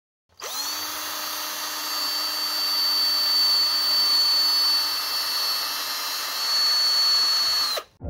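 Cordless drill spinning a foam polishing pad against a plastic headlight lens: a steady high-pitched whine that starts about half a second in and winds down just before the end.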